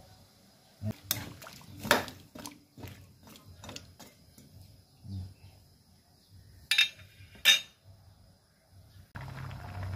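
Metal ladle clinking and scraping against a metal wok while stirring squash in coconut milk, with two sharp taps about seven seconds in. Just before the end a steady bubbling hiss begins as the coconut milk comes to the boil.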